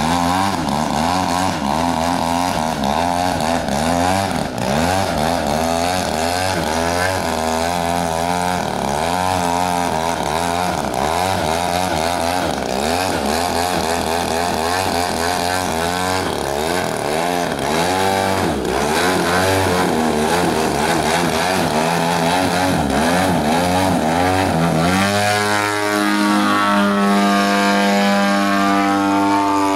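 Engine and propeller of a 30% scale Extra aerobatic radio-controlled plane, its pitch wavering up and down with throttle changes while the plane hangs nose-up in a hover. Near the end it settles into a steady note as the plane climbs away.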